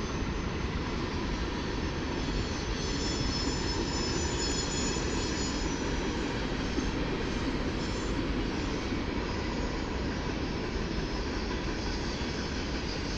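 A long train of many wagons rolling steadily past, with a faint high wheel squeal in the middle of the passage.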